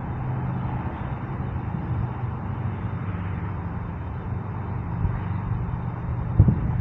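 Steady vehicle rumble with a low hum, typical of cars or traffic near a parking structure; a short thump near the end.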